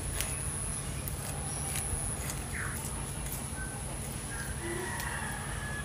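A fish being scaled against a curved boti blade, the scraping giving a few sharp clicks. Birds chirp now and then over a steady high-pitched whine.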